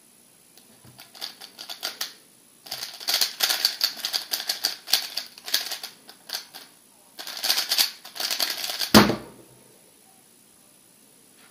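MoYu RS3 M 2020 3x3 speedcube being turned at speed during a timed solve: a fast, dense clatter of plastic clicks in runs with brief pauses. It ends with a single heavy thump about nine seconds in, as the cube is put down on the mat to stop the timer.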